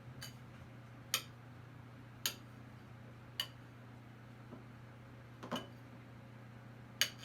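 A metal utensil clinking against the mug holding a microwaved cheddar biscuit: six sharp, short ticks spaced about a second apart, over a steady low hum.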